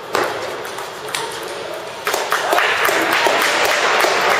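Table tennis ball sharply struck a couple of times in a short rally, then hand clapping from about halfway through as the point ends.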